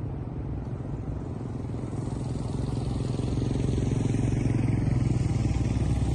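A group of motorcycles' engines running steadily as the bikes ride past on a gravel road, growing louder as they approach and easing slightly near the end.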